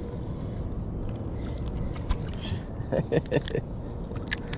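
Steady low outdoor rumble, with a quick cluster of small splashes and knocks about three seconds in and a sharp click just after four seconds, as a small hooked sunfish is reeled to the surface and grabbed by hand.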